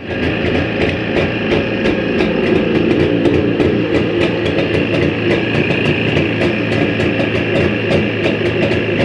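Jawa 350 type 638 two-stroke twin engine running steadily, with a regular sharp ticking a few times a second over it. The ticking is the extraneous engine noise that the owner is asking about; its cause is not known.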